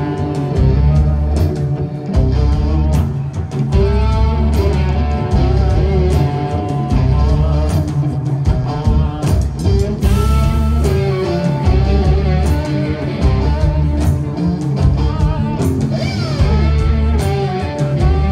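Live blues-rock band playing an instrumental passage between vocal lines: guitar over heavy bass and steady drum hits.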